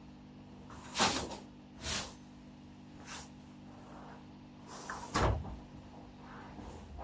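Several short household knocks and clunks, about four spread over a few seconds, over a faint low steady hum: things being handled and set down, with cupboard or door bumps.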